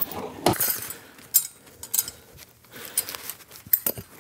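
Hand tools and plastic supplies being handled and sorted: a few sharp clicks and knocks with light rustling between them.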